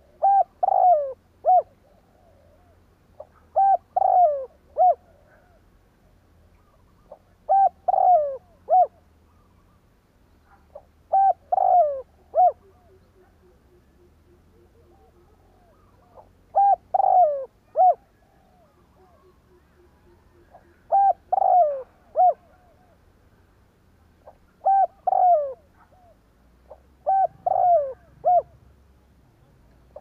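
Spotted dove cooing its song: a short phrase of three or four coos, repeated about every three to four seconds, eight times.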